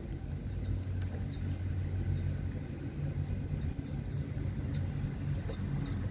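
A steady low engine hum, even in pitch, with a few faint ticks over it.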